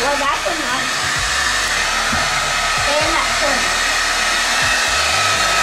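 Handheld hair dryer running steadily: a continuous rush of air with a steady whine from its fan.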